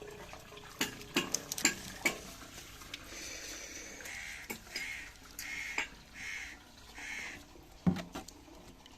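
A bird calling about five times in steady succession, after a few sharp clicks and knocks; a single thump near the end.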